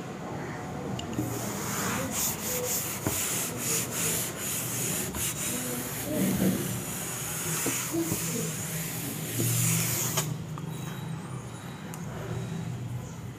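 A cloth wiped hard back and forth across a chalkboard, erasing it: a run of scrubbing strokes that stops about ten seconds in.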